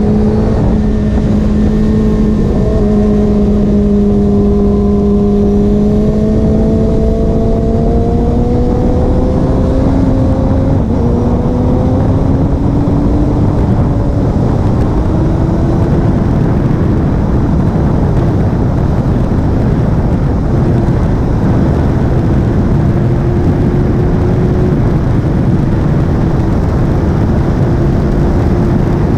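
Racing motorcycle engine running hard at track speed, its note climbing slowly for about fifteen seconds and then holding steady. Heavy wind rush covers it.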